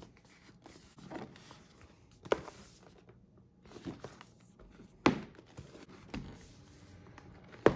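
A cardboard box and its lid being handled: faint rustling of the cardboard with a few sharp knocks, one a couple of seconds in, a louder one about five seconds in and another near the end.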